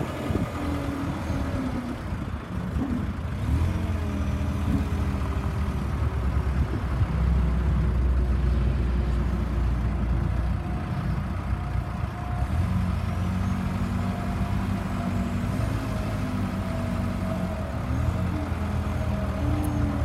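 2006 Case 420 skid-steer's engine running steadily, its pitch shifting up and down a few times as the throttle or load changes.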